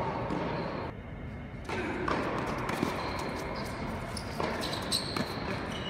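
Tennis balls bouncing on a hard indoor court, a few scattered thuds that ring in the large hall, with voices in the background.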